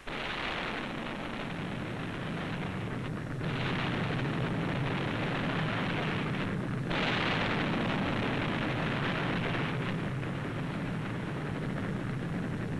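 Explosions and fire on a burning aircraft carrier, heard through an old film soundtrack: a continuous rumbling noise of blasts, with new, louder swells starting suddenly about three and a half and seven seconds in.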